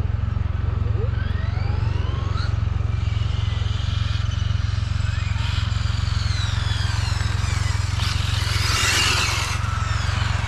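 Radio-controlled cars driving around, their motors whining up and down in pitch as they speed up and slow down, over a steady low rumble. Near the end comes a short burst of hiss.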